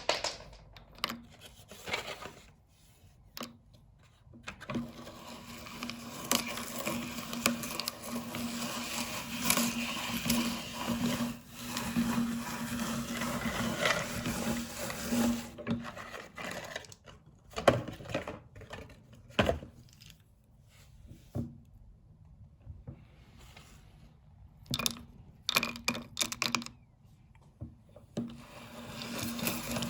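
Meat grinder running and grinding with a steady hum from about five to sixteen seconds in. After that it stops and starts, with scattered clicks and knocks.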